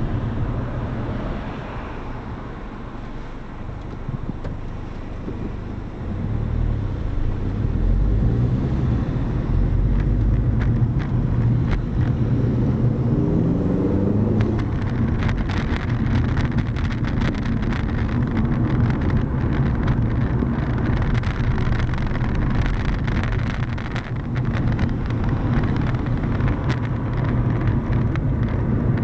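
Car running with engine and road noise. About twelve seconds in the engine pitch rises, then many small clicks or rattles come through the rest.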